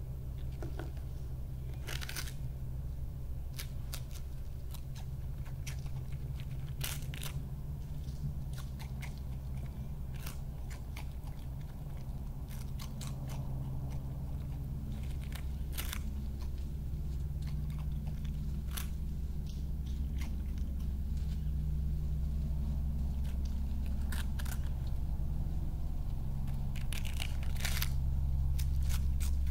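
European badger chewing a prawn cracker: irregular sharp crunches a few seconds apart, over a steady low hum.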